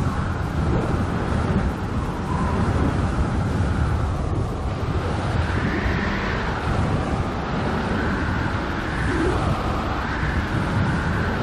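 Wind blowing hard across the microphone: a steady low rumble with a higher whistle that rises and falls several times.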